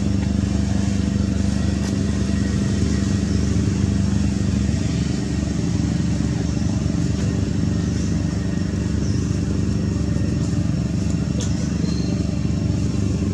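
A motor engine running steadily at idle, with a small drop in its hum about five seconds in.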